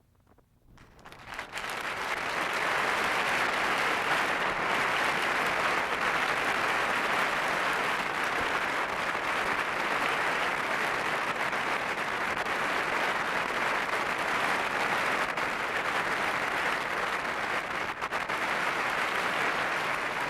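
Concert hall audience applauding: after a moment's hush the clapping swells within the first couple of seconds into dense, steady applause.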